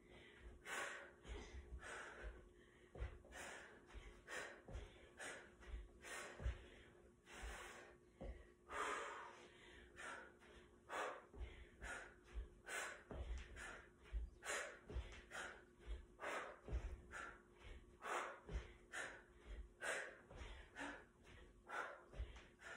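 A woman breathing hard and rhythmically during a bodyweight cardio exercise, short breaths in a steady run, with soft low thuds of bare feet landing on a rug.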